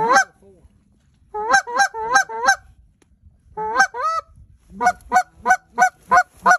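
Goose honks in short bursts: a pair, then a run of four, a run of three, and a closing string of six evenly spaced honks at about three a second.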